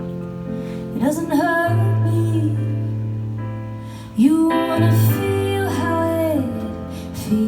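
Live band music: a woman singing drawn-out phrases over guitar and held low bass notes.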